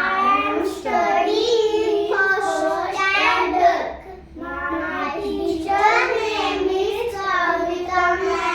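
Young children singing together in a classroom.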